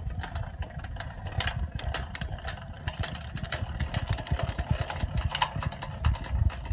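Wind buffeting the microphone, a rough low rumble, with scattered clicks and knocks.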